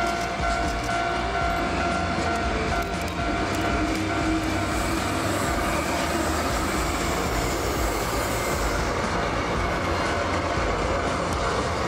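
DE10-class diesel-hydraulic locomotive passing close by with its engine running, hauling new, unpowered Nankai 8300 series cars whose wheels clack over the rail joints.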